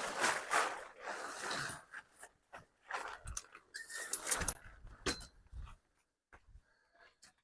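Tent frame and nylon fabric being handled: rustling and scraping with several sharp clicks, dying away about six seconds in.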